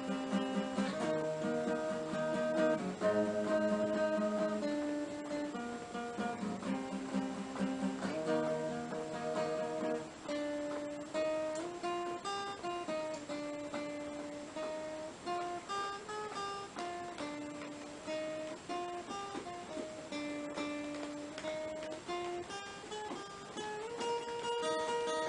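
Guitar playing an instrumental break: chords for about the first ten seconds, then a single-note melody line moving up and down.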